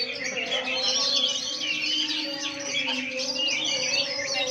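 Oriental magpie-robins (kacer) singing: a dense, continuous tangle of quick, varied chirps and whistles from several birds at once.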